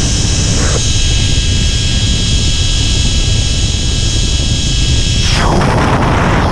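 Loud rush of wind buffeting the camera microphone of a rider speeding face-down along a zip line, with thin, steady, high whining tones over it. A louder hissing rush starts about five seconds in.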